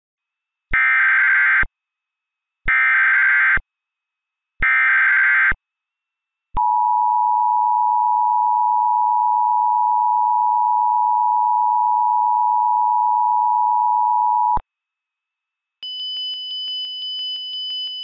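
Emergency Alert System tones: three short bursts of screechy SAME header data, then the EAS two-tone attention signal (853 and 960 Hz) held steady for about eight seconds before cutting off. About a second later a higher-pitched, rapidly pulsing beep tone starts near the end.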